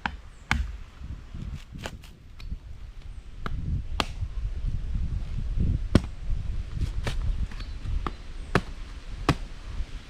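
A blade chopping, with about a dozen sharp strikes at irregular intervals and low rumbling handling noise between them.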